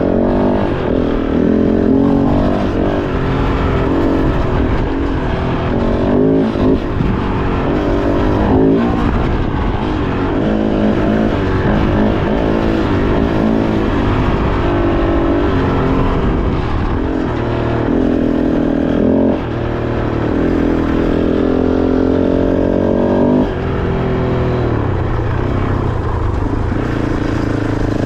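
Kove 450 Rally's single-cylinder four-stroke engine running under load on a trail ride, its pitch rising and falling as the throttle opens and closes. There are brief dips in level about two-thirds of the way through, as if the rider eases off the throttle.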